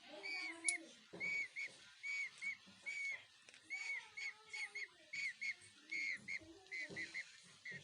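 Pet parrot calling with a quick series of short, high whistle-like chirps, about two or three a second.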